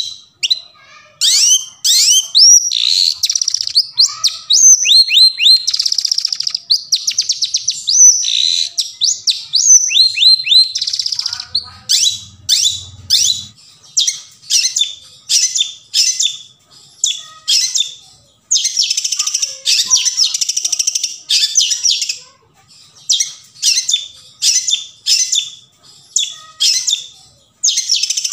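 Long-tailed shrike (cendet) singing: a varied run of down-slurred whistles and scratchy phrases, then short notes repeated about twice a second, broken by bursts of harsh chatter.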